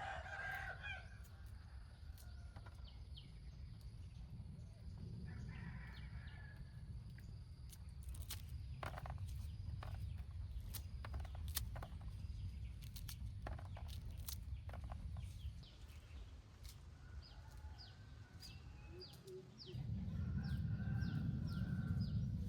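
Chickens clucking, with a rooster's crow trailing off at the start and a few more short calls later. Scattered sharp clicks and knocks in the middle, over a steady low rumble that gets louder near the end.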